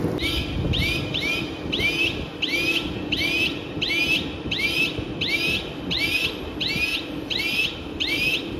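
A high chirping whistle repeated at an even pace, about one and a half chirps a second, each sweeping up and curling over. It stops near the end, over the steady low hum and rumble of crushing-plant machinery.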